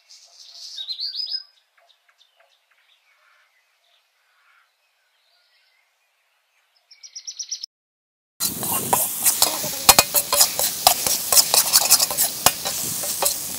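Faint bird chirps over near silence. Then, from about eight seconds in, a steel ladle scrapes and clacks rapidly against an iron kadai as cooked rice is stirred into the tamarind mixture over the fire.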